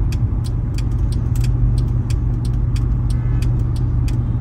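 Steady low rumble of a Mercedes-Benz E-Class W212 idling, heard from inside the cabin, with light irregular clicks two or three times a second and a faint short tone about three seconds in.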